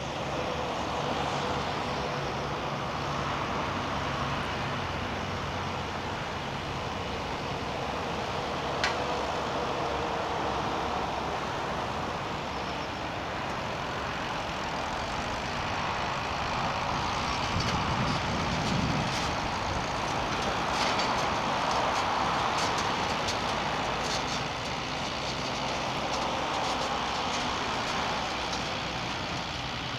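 Tractor engine running steadily under load while pulling a plough through grassland, with a sharp click about nine seconds in.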